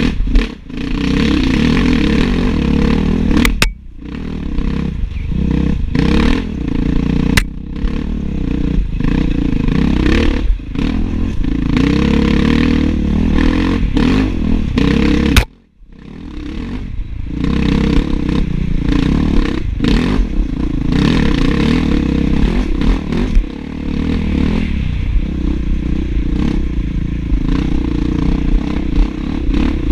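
Enduro dirt bike engine running hard, recorded on board, with the clatter and scrape of the bike working over rough ground. The engine sound drops off sharply twice, about 4 seconds in and again about 15 seconds in, then picks back up.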